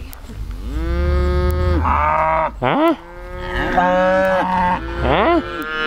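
Highland cattle mooing close by: several long, loud moos that overlap one another, some sliding up and then falling in pitch, with a short one about halfway through.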